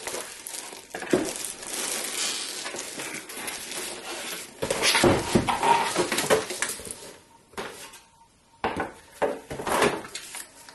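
Plastic wrap crinkling and a cardboard box being handled while a machine is unpacked: continuous rustling, loudest a little past halfway, then a few sharp knocks of cardboard and packaging set down near the end.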